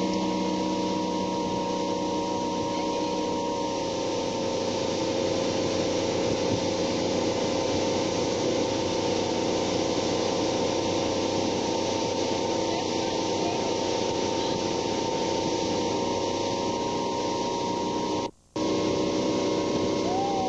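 Motorboat engine running steadily at speed while towing water skiers, with rushing wind and water noise. The sound cuts out for a moment near the end.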